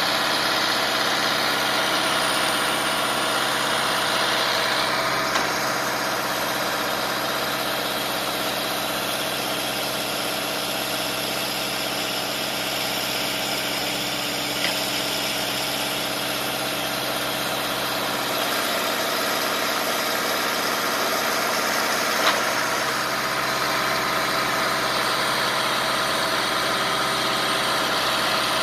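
A 2009 Jarraff 75 ft 4WD tree trimmer's diesel engine running steadily as the boom is lowered, with a few brief clicks.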